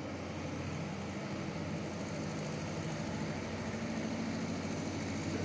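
A steady low mechanical hum with an even background hiss.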